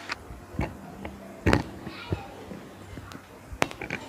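A few scattered knocks and thumps in a room, the loudest about a second and a half in, over faint room noise.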